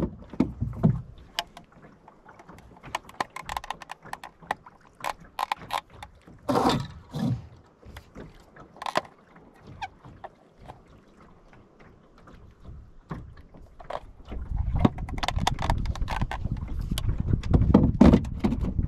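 Sunfish sailboat sitting on the water, with irregular knocks, clicks and small creaks from the boat and its rigging. About three-quarters of the way in, wind starts buffeting the microphone with a low rumble.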